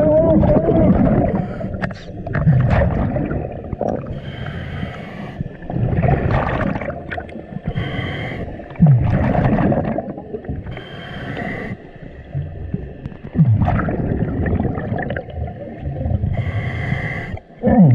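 Scuba regulator breathing heard underwater: a hissing inhale through the regulator every few seconds, about five times, between low, gurgling rumbles of exhaled bubbles.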